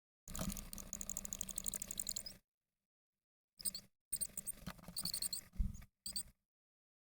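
Chickadee nestlings begging in the nest box: bursts of rapid, very high-pitched squeaky calls, about ten a second, in two spells with a short break, with rustling and a thump of movement in the nest box.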